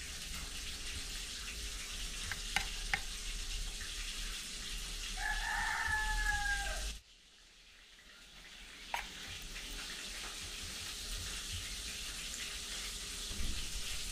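Chicken nuggets sizzling as they fry in hot oil, with a few light clicks. About five seconds in a rooster crows once in the background. Around seven seconds the sizzling cuts out suddenly, then builds back up.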